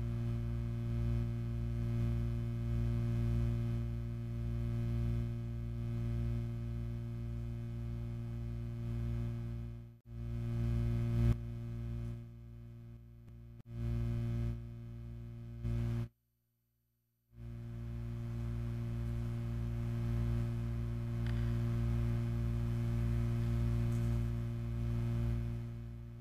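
Steady electric-sounding hum made of several fixed low tones, used as an imitation of tinnitus. It cuts off abruptly several times: a brief break about ten seconds in, a quieter stretch soon after, then a second of total silence before it resumes unchanged.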